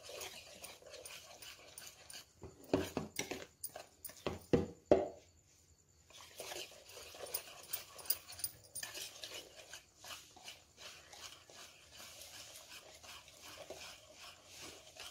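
Spatula stirring thick mango semolina cake batter in a plastic bowl: a run of quick, wet scraping and slapping strokes, with a few louder sounds between about two and a half and five seconds in.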